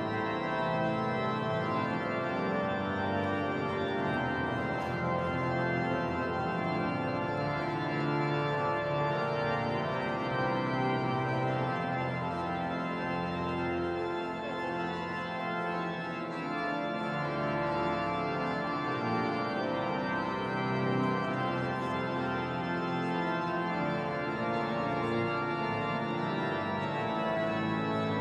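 Cathedral pipe organ playing sustained full chords that shift every second or two.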